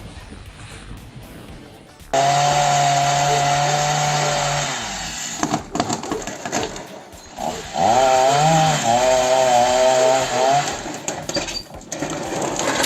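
Chainsaw running at high revs. It cuts in suddenly about two seconds in, holds a steady pitch for about three seconds and eases off. It comes back near the middle for about three seconds more with a wavering pitch.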